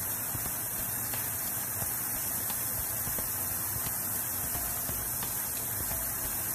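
Steady hiss of water running from a garden hose into a plastic kiddie pool.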